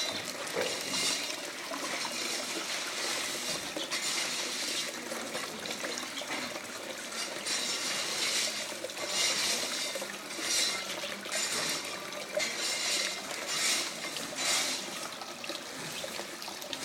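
Water from a small home waterfall splashing and trickling continuously, with uneven swells in the splashing every second or so.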